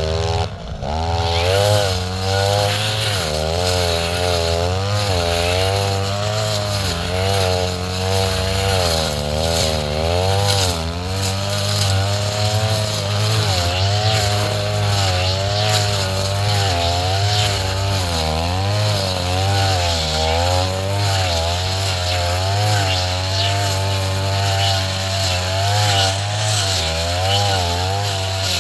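Two-stroke brush cutter engine running fast, its pitch wavering up and down as the blade meets tall grass, with a brief drop in revs about a second in.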